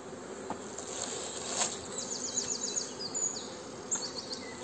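Honeybees buzzing steadily over the open frames of a small queenless mating nuc. There is a light knock about a second and a half in, and a few quick high chirps around the middle and near the end.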